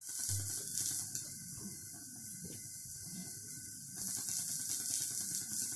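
Steady high hiss of room and recording noise, with faint knocks and rustles of a person moving into place behind a microphone stand; the hiss grows louder about four seconds in.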